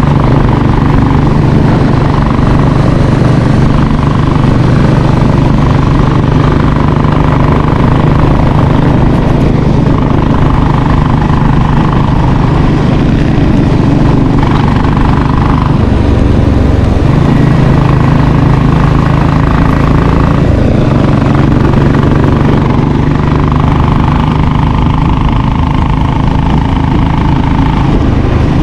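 Royal Enfield Classic 500's single-cylinder engine running steadily at road speed, heard from the rider's seat. Its note changes abruptly a few times, about 16 and 20 seconds in.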